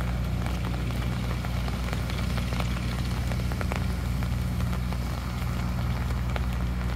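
Raindrops ticking irregularly on an umbrella, over a steady low hum.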